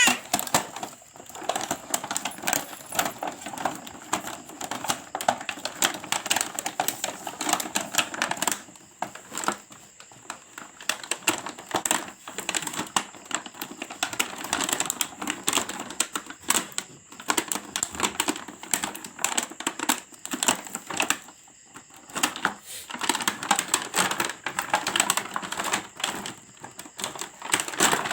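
Rapid, irregular clicking and rattling of hard plastic from a toy cement mixer truck being handled, with a thin steady high whine underneath.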